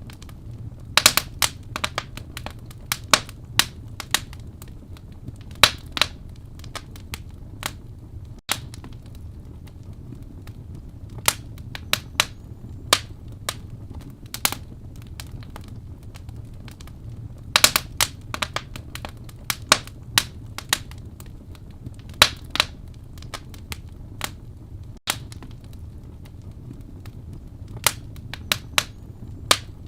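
Wood fire burning in a fireplace: irregular sharp crackles and pops of burning logs over a steady low rumble of the flames, with clusters of louder pops about a second in, around six seconds, and around eighteen and twenty-two seconds.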